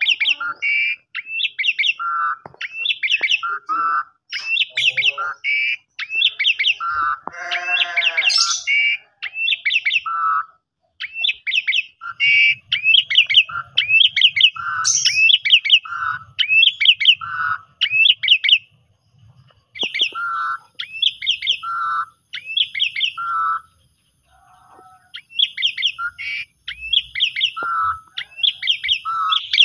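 Caged pied starling (jalak suren) singing its 'kopi-kopiko' song style, repeating a short whistled phrase about once a second: bright high notes alternating with a lower note. One buzzier note comes about a quarter of the way through.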